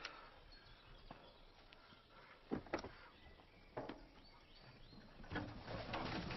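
A car door clunking, with two sharp knocks a little over a second apart, then footsteps scuffing and rustling through grass toward the end.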